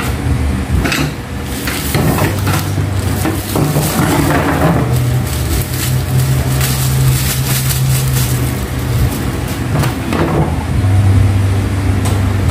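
Clear plastic packaging crinkling and wire dish-rack parts clicking as a new dish rack is unpacked. Under it runs a steady low hum that drops in pitch about ten seconds in.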